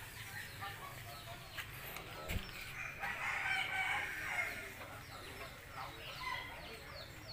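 A rooster crows once, a drawn-out call starting about three seconds in, over small birds chirping. A brief low thump comes just before the crow.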